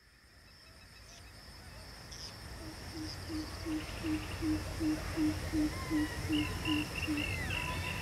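Bush ambience fading in: a steady high insect drone, a bird repeating a low hooting note about three times a second, and higher chirping bird calls joining near the end, over a low rumble that swells throughout.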